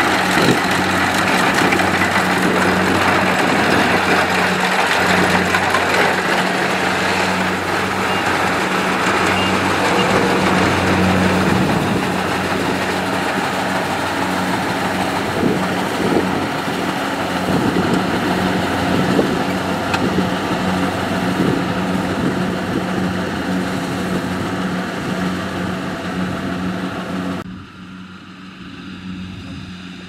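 Kubota DC70 rice combine harvester running steadily as it cuts and threshes, its diesel engine a constant drone under the noise of the working machinery. Near the end the sound drops to a quieter, duller level.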